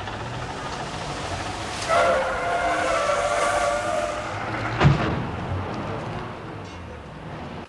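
Street traffic noise in the background. About two seconds in, a wavering squeal lasts about two seconds, and a single sharp metallic clank comes near the middle.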